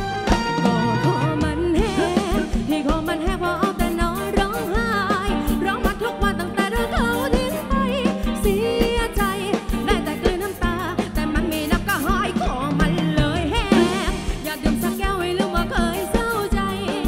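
Live Thai ramwong band playing a cover song, with a drum kit keeping a steady beat under a singer's wavering, vibrato-laden melody.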